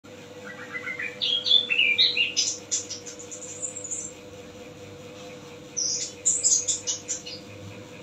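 Chestnut-capped thrush (anis kembang) singing loud and clear: two phrases, each a run of whistled notes climbing steadily in pitch into quick high twitters, the first beginning about half a second in and the second about six seconds in.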